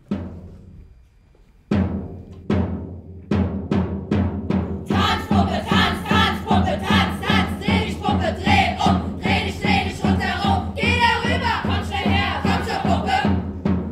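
Stage music: a few spaced, ringing low drum strokes, then from about five seconds a steady drum beat of about two strokes a second with a group of voices singing along.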